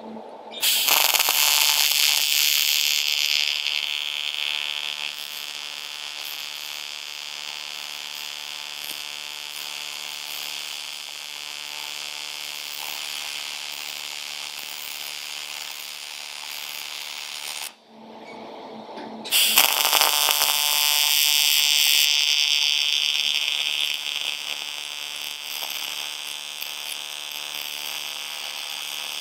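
AC TIG welding arc on aluminium buzzing steadily as a 1 mm sheet is lap-welded onto a 3 mm sheet, at up to about 180 amps on a foot pedal. The arc strikes about half a second in, loudest at first, cuts out for about a second and a half some eighteen seconds in, then strikes again.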